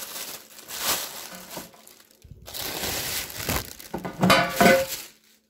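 Plastic bag crinkling and rustling as it is pulled off a square metal baking pan. A short vocal sound follows about four seconds in.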